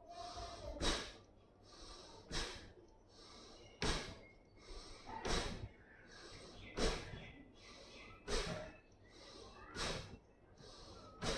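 Forceful, sharp exhalations through the nose, about one every second and a half, each followed by a softer in-breath: rhythmic pranayama breathing.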